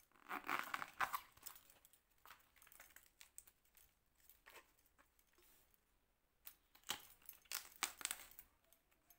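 Banana flower being stripped by hand, bracts and florets pulled off: faint crinkling, tearing rustles in short clusters, about the first second in and again near the end.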